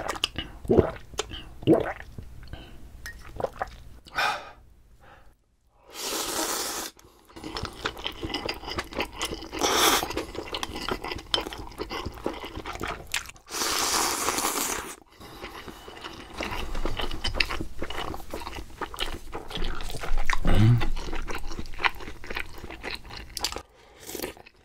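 Close-miked eating sounds: crunching and chewing, with many sharp clicks and a few hissing bursts about a second long.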